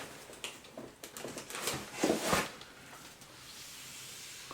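Handling noise from unpacking: scattered light clicks and rustling, with a louder rustle about two seconds in, then a soft steady hiss.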